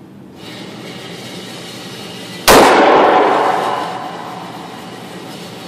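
A single handgun shot about two and a half seconds in, very loud and sharp, with a long echoing tail from the enclosed indoor range lane.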